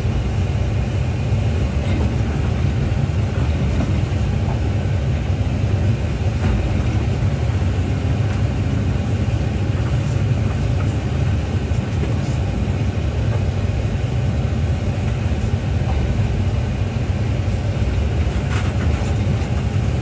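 Excavator's diesel engine running steadily, a continuous low drone.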